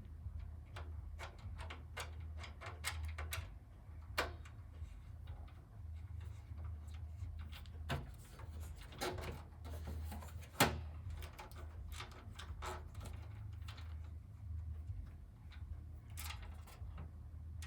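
A screwdriver and screw clicking and knocking against the metal power supply and computer case as a mounting screw is tried in its hole, with a few louder knocks among the light taps. The screw is not catching because pushing on it shoves the power supply back. A steady low hum runs underneath.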